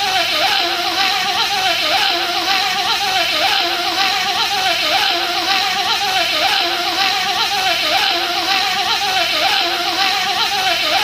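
A man's voice making a continuous buzzing bee impression, apparently a short clip looped so that the same wavering pitch pattern repeats about every second and a half.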